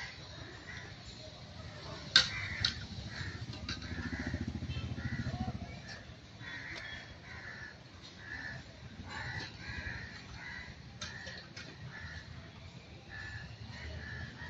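Birds calling over and over in short, harsh calls, with a sharp click about two seconds in and a low hum that swells and fades around the middle.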